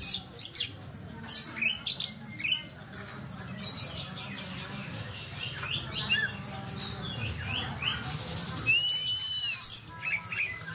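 Oriental magpie-robin (kacer) singing: a rapid, varied run of short sharp chirps and whistle notes, with a clear arched whistle about three-quarters of the way through, over a low background rumble.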